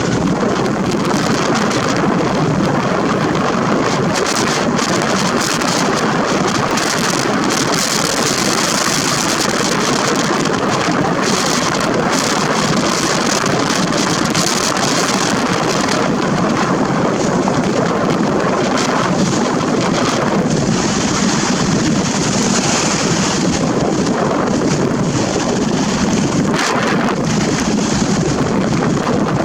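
Wind buffeting a Nikon Coolpix P900's built-in microphone: a loud, steady rushing noise, crackling unevenly throughout.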